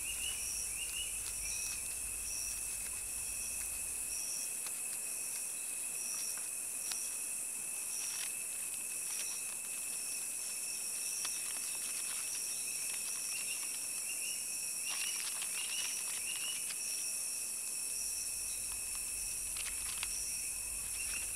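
Steady chorus of insects: a continuous high tone with a higher trill pulsing about twice a second above it, and scattered faint clicks.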